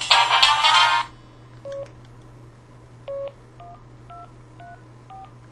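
my5000 mobile phone's built-in speaker finishing a ringtone melody, which cuts off about a second in, followed by about six short electronic keypad beeps at varying pitches with faint key clicks.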